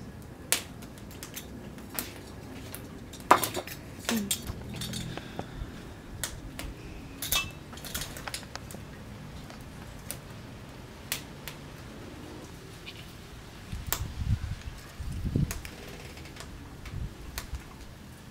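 Stainless-steel potato ricer clicking and clinking against a metal bowl as it is handled, with sharp metallic taps scattered throughout. Near the end come dull low thumps as boiled potatoes are pressed through it.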